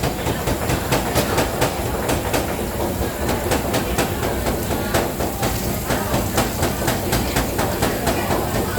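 Cleavers chopping on cutting boards: a rapid, irregular knocking that keeps up throughout.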